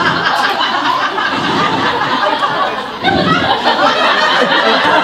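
Theatre audience laughing during a comedian's physical bit, steady and loud, swelling a little about three seconds in.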